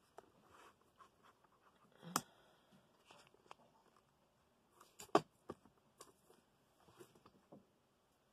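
Soft handling noises: scattered light clicks and rustles, with a sharper knock about two seconds in and another about five seconds in. The sewing machine is not running.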